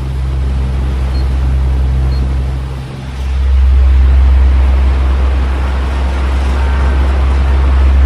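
Fan ambience: a loud, steady, deep droning hum with a rushing-air hiss, dipping briefly about three seconds in.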